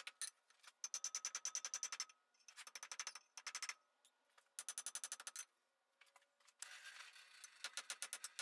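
Broad-faced cross peen hammer striking hot iron on an anvil in quick runs of blows, several a second, in four runs with short pauses between, spreading a flat pad on the end of a tripod leg.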